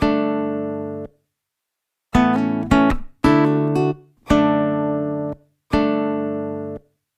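Background music: guitar chords strummed one at a time, each ringing for about a second and then stopped short, with silent gaps between, six in all.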